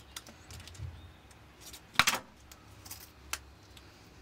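Scissors snipping plastic glue-in hinges off their moulded sheet, heard as a few separate sharp clicks with a small cluster about two seconds in, the loudest.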